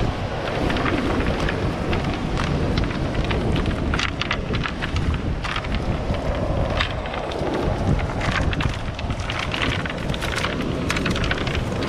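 Wind buffeting the microphone over the steady wash of rough surf, with irregular clicks and clatters of pebbles and the cast net's weights as the net is handled on a stony beach.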